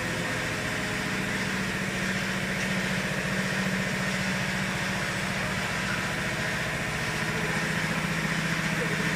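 A glue-spraying composite machine for non-woven cotton running: a steady mechanical hum of its motors and rollers, with a few steady low tones.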